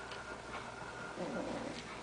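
One-month-old Briard puppies playing, with a short low puppy growl just past the middle and a few light clicks and rustles from their paws on newspaper.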